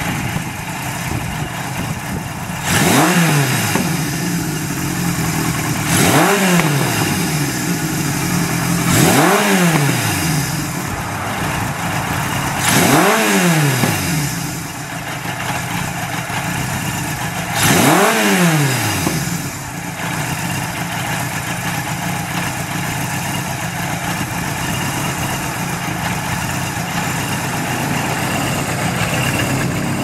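Kawasaki KZ1000's air-cooled inline-four engine idling and blipped by the throttle five times, each rev rising and dropping back within a second or two, then settling into a steady idle.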